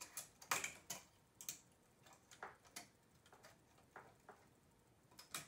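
Light, irregular clicks of metal transfer tools against the latch needles of a knitting machine, as groups of stitches are lifted off and hung back on to cross a cable.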